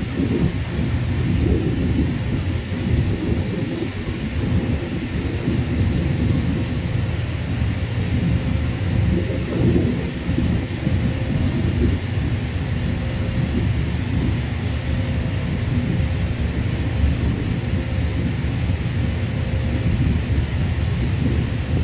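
Jet airliner engines rumbling steadily, with a hiss above the low rumble.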